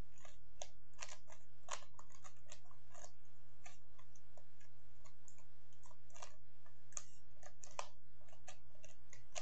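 Rubik's 3x3 cube being turned rapidly by hand in a speedsolve: quick, irregular clicking and clacking of the plastic layers as they turn, over a steady low hum.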